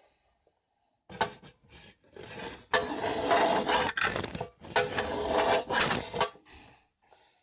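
Slime container being handled close to the microphone: rustling and clattering in several bursts, loudest in the middle.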